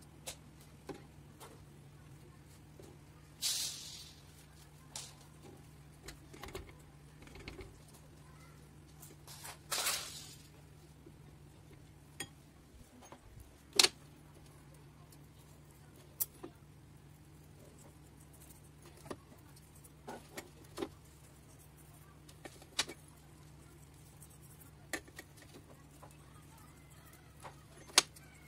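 Quiet kitchen handling noise: scattered small clicks and taps, with two short rustling hisses about three and ten seconds in, over a faint steady hum.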